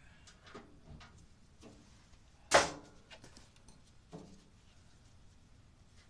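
Sheet-metal cabinet of a Maytag A512 top-load washer being handled and lined back up: one loud clank with a short ring about two and a half seconds in, and a few faint knocks and rubs around it.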